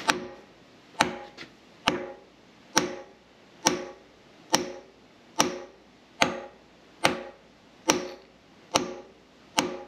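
Copper mallet striking the seized shaft and pinion of a Victorian radial drilling machine: twelve even blows, a little under one a second, each with a short metallic ring. The rusted-in shaft is being knocked loose.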